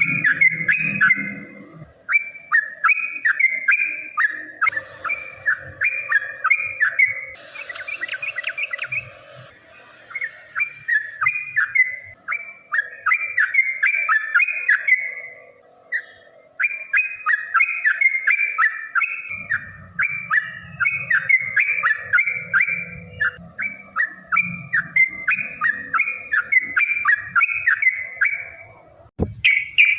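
Yellow-vented bulbul (trucukan) singing in long, fast runs of bubbly chattering notes, phrase after phrase, with a brief break about halfway.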